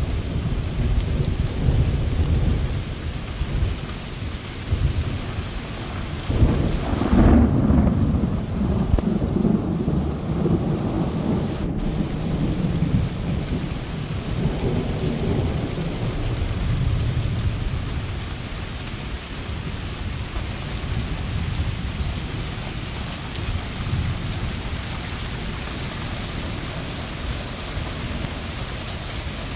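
Thunder rumbling over steady rain. A louder peal of thunder swells about six seconds in and rolls away over the next several seconds.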